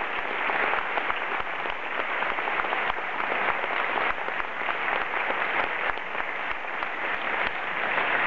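Large audience applauding, with many hands clapping steadily.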